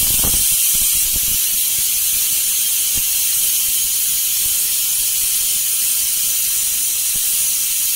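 Pressure cooker whistling: a loud, steady hiss of steam escaping past the weighted whistle on the lid. This is one of the whistles counted to tell how long the food has cooked under pressure.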